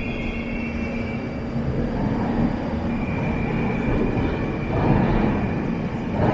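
Moscow metro train running through the station: a dense rail noise that swells twice, with a steady high whine over it.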